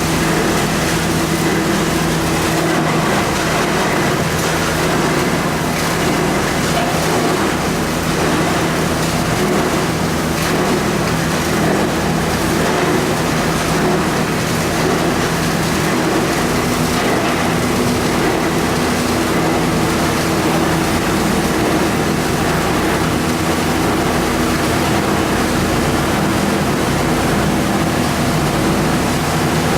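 AST-600 copper wire recycling machine running: a loud, steady mechanical noise with a low hum.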